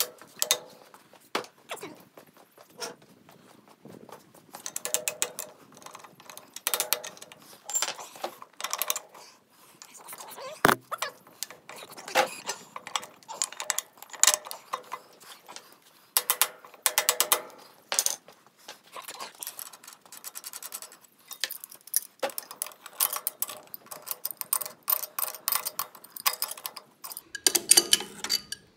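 Hand tools working the steel hydraulic fittings of a mini excavator's thumb as a fitting is loosened and turned: repeated short bursts of quick, even ratchet-like clicking, with one sharp knock about eleven seconds in.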